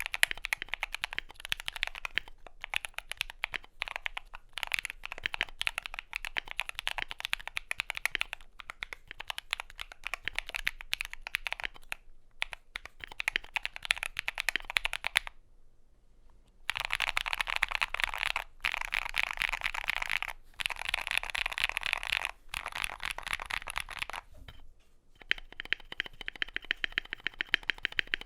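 Typing on a mechanical keyboard with lubed Akko CS Blue clicky switches and PBT keycaps in a Skyloong GK68XS aluminium case: a fast, continuous run of sharp keystroke clicks. It stops for about a second and a half just past halfway, then resumes in a dense, faster burst.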